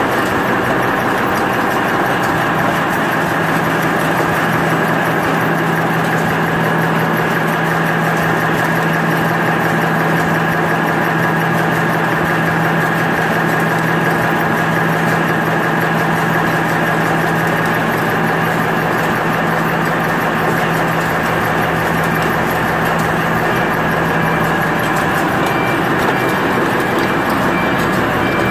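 Automatic napkin folding and packing machinery running: a steady, loud mechanical clatter with a constant whine, and a low hum that drops out near the end.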